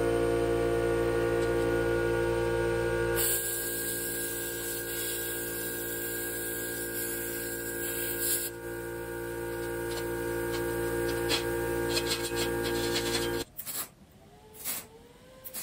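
Handheld plasma cutter cutting 1/8-inch steel sheet: a loud hiss of air and arc starts about three seconds in over a steady hum, and crackles as the cut goes on. About thirteen seconds in it stops abruptly, leaving a few faint clicks.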